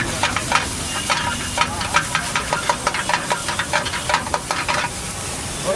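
Steel spatula scraping and clinking rapidly against a wok while an omelette masala is stirred in sizzling oil. The clinks come several times a second, then thin out about five seconds in.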